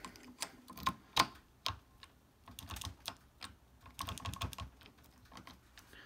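Small, irregular metallic clicks and taps as a filed key blank is worked into the keyway of an old Corbin wafer padlock and an impressioning grip is fitted onto it.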